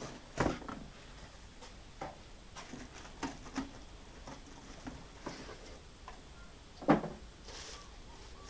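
Cardboard box being opened and handled, with scattered small knocks and scrapes of the flaps and two louder thumps, about half a second in and near seven seconds. A plastic bag rustles briefly near the end.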